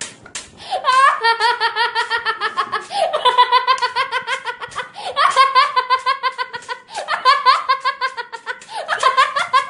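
A person laughing hard: repeated runs of rapid, high-pitched ha-ha pulses, about five runs each lasting a couple of seconds, each starting with a rising squeal.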